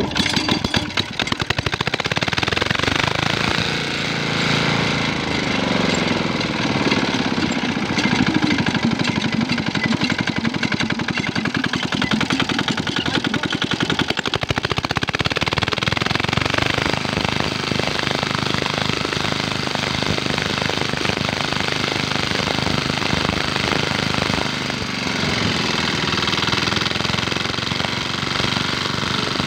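Small diesel engine driving a well water pump, running with a rapid knocking beat. Its speed dips and picks up again about five seconds in and once more near the end.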